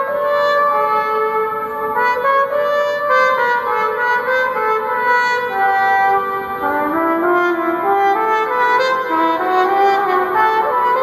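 Solo trumpet playing a melody of held notes that move step by step, dipping lower about six seconds in and climbing again near the end.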